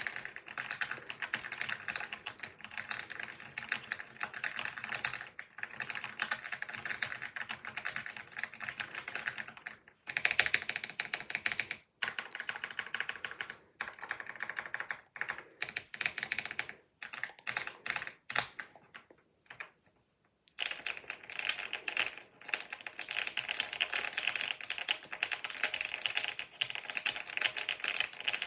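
Fast typing on 75% mechanical keyboards, the Aula F75 and the Rainy 75 Lite. Dense keystrokes fill the first ten seconds. Sparser, louder strokes with short breaks follow. The typing stops briefly about twenty seconds in, then resumes fast and continuous.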